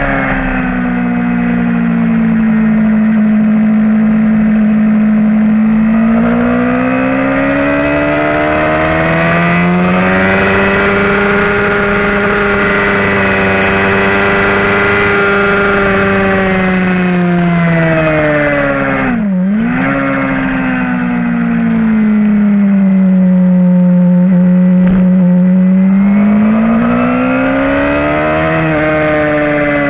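Onboard sound of a 2011 Suzuki GSX-R750 inline-four racing motorcycle with a full Yoshimura exhaust, running hard at race pace. Its engine note rises and falls in long sweeps, with a sharp dip and quick recovery about two-thirds of the way through.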